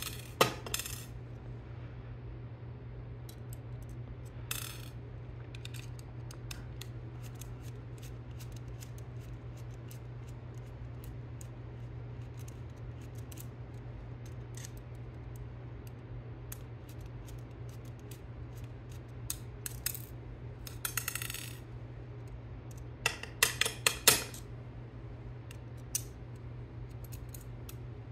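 Small metal screws, nuts and a screwdriver clinking against the aluminium robot-arm brackets and the desk while the parts are unscrewed: scattered light clicks, with a flurry of louder clinks near the end. A steady low hum runs underneath.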